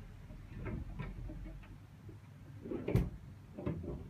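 Several muffled knocks and thuds from a neighbouring flat, coming through the walls and ceiling. The loudest is one sharp knock about three seconds in.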